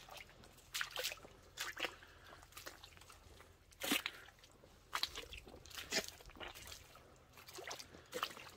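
Footsteps squelching through sloppy wet ground, about one step a second. The loudest step falls about four seconds in.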